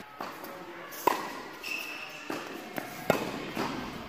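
Tennis balls struck by rackets on an indoor court, sharp pops echoing in the hall: a loud hit about a second in and another about three seconds in, with fainter hits between them. A short high squeak just after the first hit.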